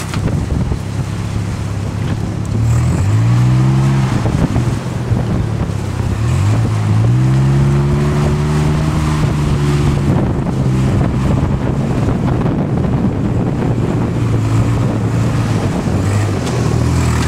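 Off-road vehicle's engine running under way on a trail, revving up about two and a half seconds in and again around six seconds in, held high for a few seconds before easing off, over steady wind and tyre noise.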